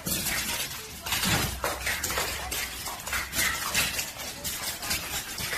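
Rapid, irregular clattering and scraping of a dog's and a cat's claws on a polished marble floor as they scuffle and chase.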